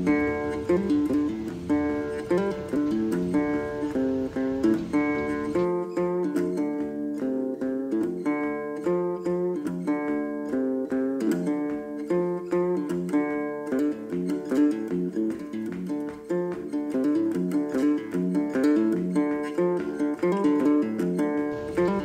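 Background music: a guitar picking a steady run of plucked notes.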